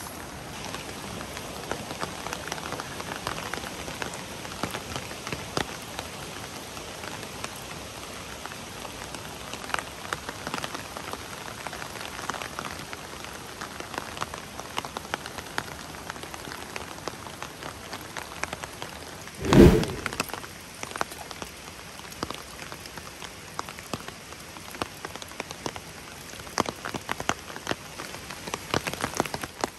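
Heavy downpour: steady rain with many close raindrop ticks, and a single loud thump about two-thirds of the way through.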